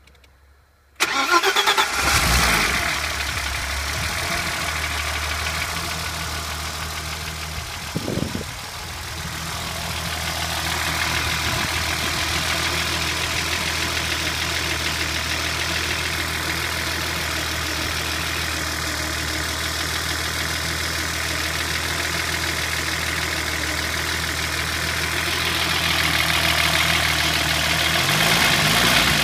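BMW E30 325i's M20B25 2.5-litre straight-six starting up about a second in, then idling steadily, with a brief change in the note about eight seconds in.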